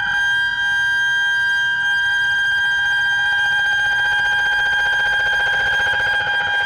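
Modular synthesizer holding a chord of several high, steady electronic tones, with a fast pulsing flutter that grows stronger from about two seconds in toward the end.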